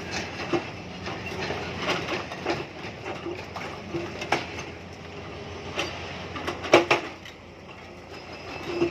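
Tata Hitachi excavator working stone: its engine runs steadily under irregular sharp clanks and knocks of steel on rock, with the loudest, a close pair, near seven seconds in.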